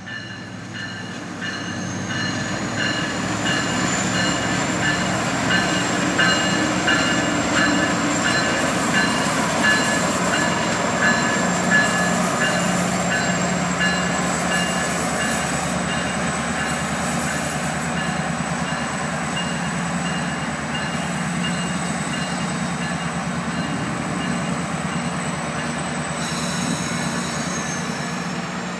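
MARC commuter train with a diesel locomotive rolling past, its engine a steady low drone under a high, thin squeal from the wheels on the rails, building over the first few seconds and then holding. A bell-like pulsing rings over it through the first half or so.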